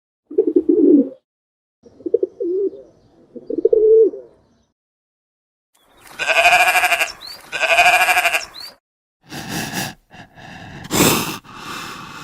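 A series of animal calls: three short, low calls in the first few seconds, then two long, pitched calls about a second each, then rougher, noisier calls near the end.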